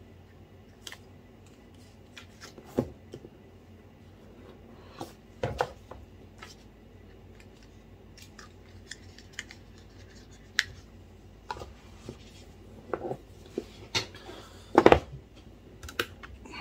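Cardboard packaging handled on a wooden desk: scattered light taps, scrapes and rustles of an iPhone box and its white cardboard inner trays, with a louder cluster of knocks near the end.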